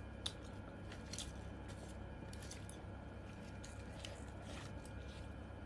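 A person eating and chewing, close up, with a few light clicks scattered through. A steady low hum runs underneath.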